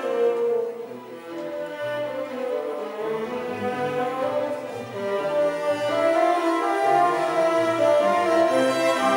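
String orchestra playing contemporary classical music, with violins, violas, cellos and double bass bowing held notes. The playing drops quieter about a second in and swells louder from about six seconds.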